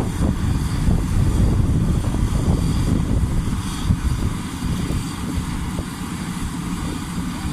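Crown Sumo combine harvester's diesel engine running steadily with a deep rumble, easing slightly about halfway through.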